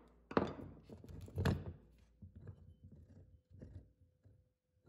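A series of knocks: two sharper ones in the first second and a half, then a string of lighter taps that fade out.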